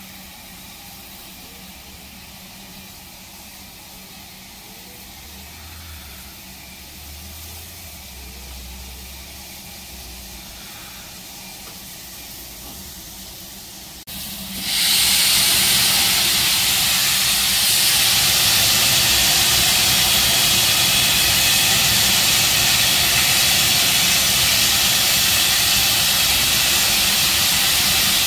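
Steam locomotive Bahamas, an LMS Jubilee class 4-6-0, standing at a platform: a faint low rumble at first, then about halfway through a loud, steady hiss of escaping steam starts abruptly and keeps going.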